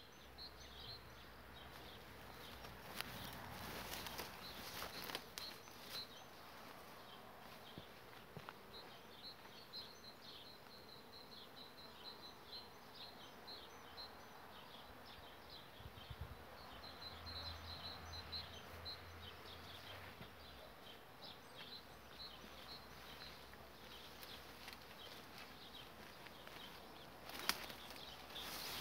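A honeybee swarm flying around a tree: a faint buzz of many bees in the air, now and then a louder low buzz as bees pass close, over steady faint high chirping. A couple of sharp knocks near the end.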